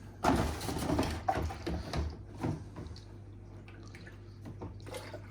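Water sloshing and splashing in the plastic condensate water tank of a Beko DPHX80460W hybrid tumble dryer as the tank is handled, with plastic knocks, loudest in the first two and a half seconds.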